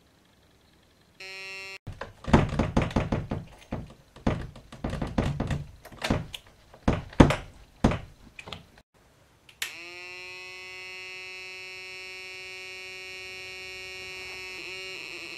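Homemade two-transistor multivibrator buzzer (burglar-alarm version, with 0.1 µF capacitors) sounding through a small 8-ohm speaker. A short buzz about a second in is followed by some seven seconds of irregular knocks and clicks. Then, from about two-thirds of the way through, a steady buzzing tone rich in overtones sets in, sweeping quickly up to pitch as it starts.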